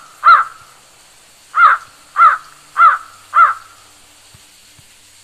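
Crow cawing loudly: one caw, then after a short pause four more in quick, even succession, each the same rising-and-falling call.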